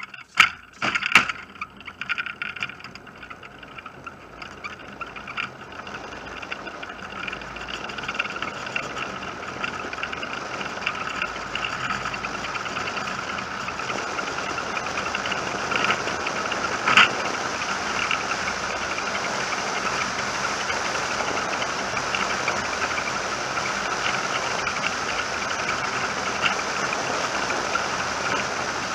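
Soapbox car coasting downhill on asphalt, heard from on board: a steady rolling rattle from its wheels and body that grows louder as it gathers speed over the first several seconds, then holds. A few knocks near the start and one sharp jolt about seventeen seconds in.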